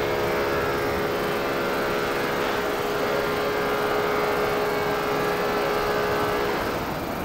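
Steady vehicle engine and street traffic noise, with a steady engine hum that drops away near the end.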